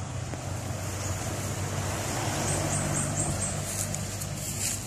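52cc two-stroke chainsaw engine idling steadily.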